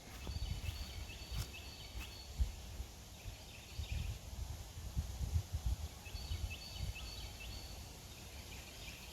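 A small bird singing two phrases of quick, repeated high notes, one right at the start and one about six seconds in. Throughout there is a low, uneven rumble of wind and handling noise on the microphone.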